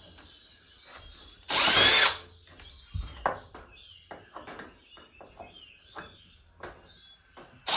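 Cordless electric screwdriver whirring for about half a second, about one and a half seconds in, as it backs out a screw; then scattered light clicks and knocks.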